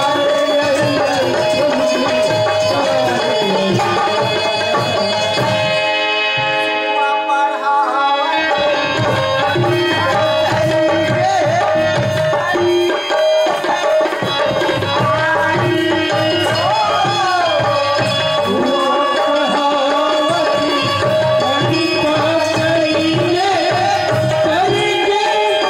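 Live folk dance music from a nacha stage band: hand drums keep up a fast rhythm under a keyboard melody. About six seconds in the drums stop for a couple of seconds while a chord is held, then they come back in.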